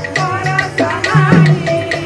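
Devotional kirtan: a double-headed hand drum beating a steady rhythm with small hand cymbals clinking on each beat, and voices singing a wavering chant over them.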